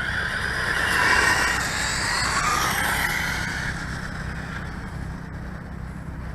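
Electric motor of a radio-controlled car whining, rising and falling in pitch as it speeds up and slows down, loudest about a second in.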